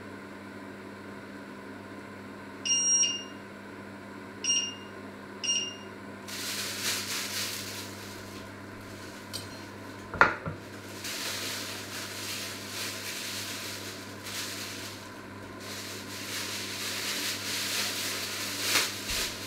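Electric cooktop's touch controls beeping three times, the first beep longer, as the hob is set. From about six seconds a high hiss comes and goes, with one sharp click near ten seconds.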